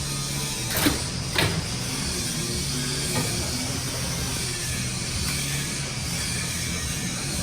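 Steady mechanical hum and hiss, with two sharp knocks about a second in and a lighter one a couple of seconds later.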